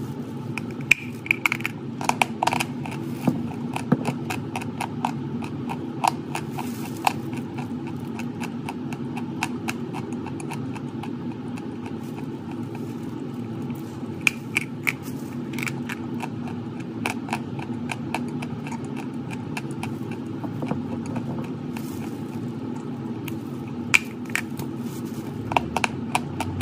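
Chalk being bitten and chewed: sharp, irregular crunches and cracks scattered throughout, over a steady low background hum.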